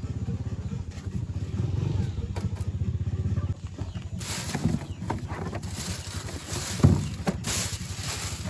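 A small engine idling steadily with an even, rapid pulse. From about four seconds in, plastic bags crinkle and rustle as bagged ice is shifted about in a plastic cooler, with one sharp knock near the seven-second mark.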